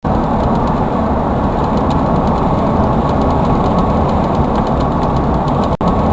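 Steady vehicle driving noise, a low road-and-engine rumble, with a split-second dropout near the end.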